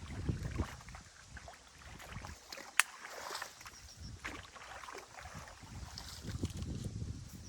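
Water sloshing and splashing in a shallow stream as a beaver dam is dug apart, in uneven swells with one sharp click about three seconds in.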